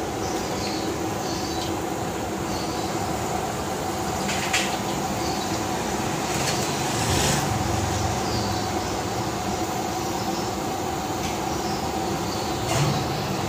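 Puri deep-frying in a large karahi of hot oil, a steady sizzle over a constant background roar, with a few sharp clicks about a third of the way in, halfway and near the end.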